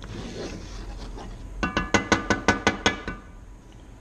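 A wooden spatula knocked rapidly against a cast iron skillet, about eight quick taps in just over a second, each with a short metallic ring.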